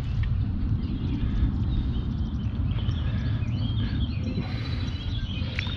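Steady low wind rumble on the microphone, with birds chirping from time to time.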